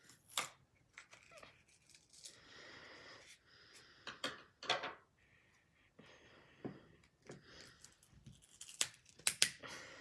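Front glass of an iPhone 3GS being pried and peeled off its frame: scraping and tearing against the adhesive in short stretches, with sharp clicks and snaps, several close together near the end.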